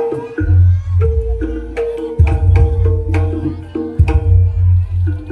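Javanese jaranan accompaniment music: sharp drum strokes over steady ringing metallophone notes and a heavy, deep bass.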